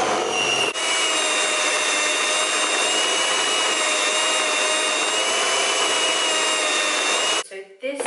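Handheld electric mixer running steadily, its beaters creaming butter and sugar in a bowl; a steady whine that steps up slightly in pitch just under a second in and cuts off about a second before the end.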